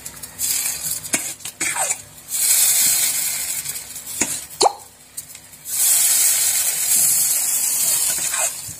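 Coconut-milk rice-flour batter sizzling as it is ladled into a hot carabikang mould, in three loud hissing spells. Between them come a few short scrapes of the metal ladle against the steel batter bowl.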